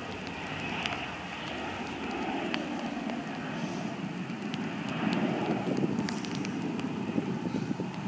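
Wind buffeting the microphone, with light rain and scattered sharp raindrop ticks. The gusty rumble grows louder about five seconds in.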